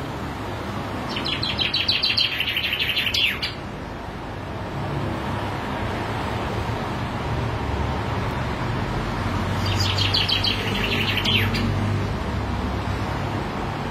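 Caged male common chaffinch singing two full song phrases, each a quick run of bright repeated notes lasting about two seconds, the first about a second in and the second about ten seconds in.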